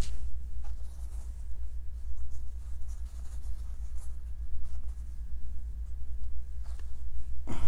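Light scratching and rustling handling sounds, with a sharp click right at the start, over a steady low hum.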